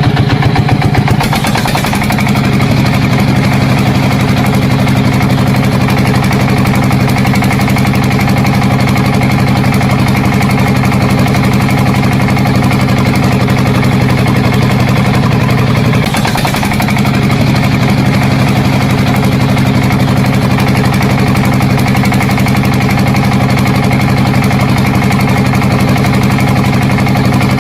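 Tractor-type engine idling steadily, with a brief dip about 16 seconds in.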